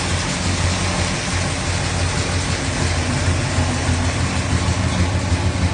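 1966 Chevelle's V8 engine idling steadily, running nice and smooth with an even exhaust note that neither rises nor falls.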